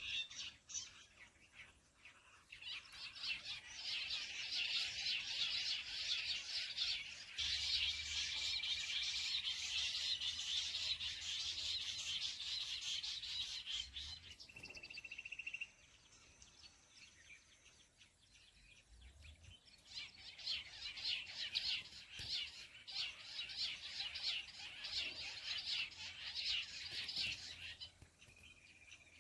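Jungle bush quail calling: a rapid, high chattering chorus in two long runs, the first cutting off abruptly about halfway through, with a brief whistled note just before it stops.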